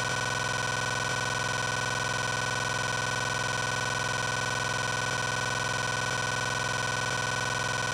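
A steady, unchanging electronic buzz with many overtones, held at one pitch and one level throughout.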